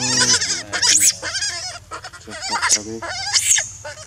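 Infant long-tailed macaque screaming in a rapid string of wavering, high-pitched cries, with two shrill shrieks, about a second in and at about three and a half seconds, while a larger macaque holds it down.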